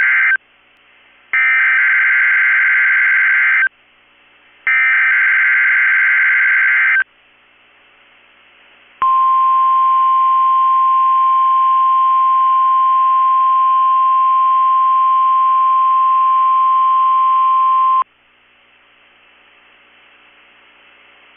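NOAA Weather Radio SAME alert header: the end of one digital data burst and then two more, each a couple of seconds long. After a short pause, the steady 1050 Hz warning alarm tone sounds for about nine seconds and cuts off suddenly to faint hiss. Together they open a Required Weekly Test of the weather alert system.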